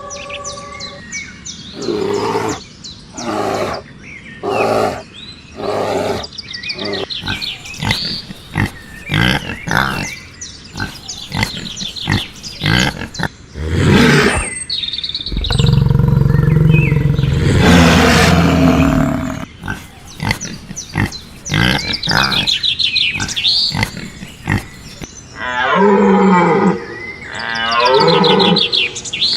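A run of animal calls one after another, the loudest a long, low roar lasting about four seconds in the middle.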